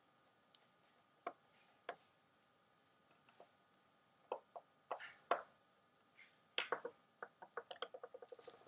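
Light clicks and taps of small repair tools and phone parts being handled while an iPhone 5C is put back together: a few scattered ticks at first, then a quick run of clicks near the end.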